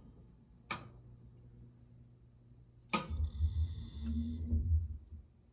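Electrical click as the HVAC control circuit is switched, then a second click that sets off a low electrical buzz with a few high steady tones. The buzz lasts about a second and a half and cuts off, as the circuit is re-powered while a dead short to ground in the low-voltage wiring is being tested.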